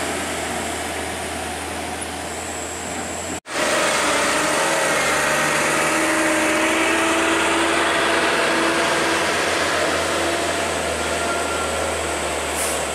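Heavy Hino diesel trucks' engines running steadily as loaded trucks drive past on a steep gravel hill road. The sound drops out for an instant a little over three seconds in.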